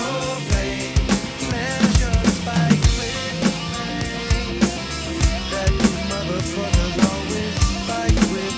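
Drum kit played along to a recorded song, with bass drum and snare hits over the track's bass line.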